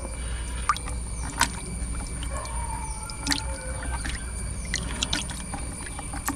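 Water splashing and trickling with scattered sharp clicks and knocks over a steady low rumble. A faint wavering whistle-like tone comes a little past the middle.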